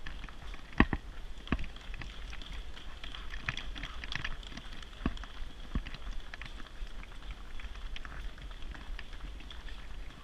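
A runner's footsteps and a Thule jogging stroller's wheels rolling over brick paving: a steady low rumble with a crackly patter and scattered sharp knocks, the loudest about a second in.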